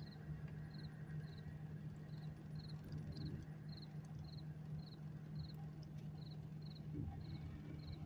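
A cricket chirping in an even rhythm, about two short pulsed chirps a second, over a steady low hum of the car heard from inside the cabin.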